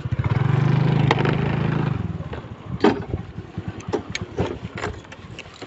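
A scooter's small engine puttering, swelling louder for a couple of seconds, then dying away about two seconds in. A few light clicks and knocks follow.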